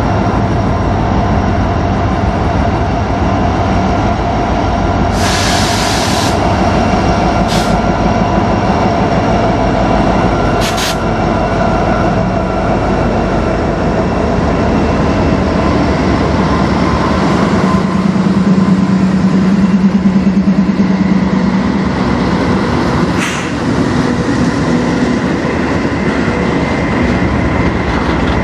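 Freight train passing close by: three CN diesel-electric locomotives, an SD70M-2 leading two Dash 9-44CWs, run past with a steady engine drone, with a few brief high hissing bursts along the way. Then the freight cars roll by with wheel clatter on the rails.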